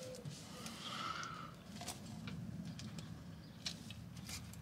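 Faint handling sounds of a tight rubber radiator hose being worked by hand onto its pipe on a diesel engine, with a few light clicks over a low, steady background hum.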